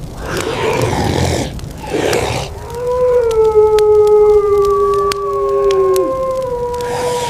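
Wolf howling: one long, clear howl starting a little under three seconds in and sliding slowly down in pitch, with a second howl overlapping it near the end. A rushing noise comes first, and a few sharp pops are scattered through the howl.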